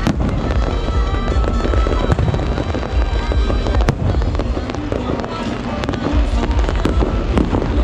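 Aerial fireworks display: shells launching and bursting overhead in a quick, irregular string of bangs and crackles over a continuous low rumble. Music plays underneath.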